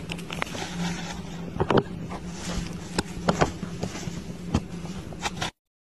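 Domestic cat purring close to the microphone, a steady low rumble, with a few sharp knocks; the sound cuts off suddenly near the end.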